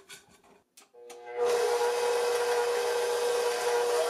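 KitchenAid Professional 600 bowl-lift stand mixer's 575-watt motor switching on about a second in and running steadily with a constant whine, its flat beater creaming softened butter in the stainless steel bowl. A few faint clicks come before it starts.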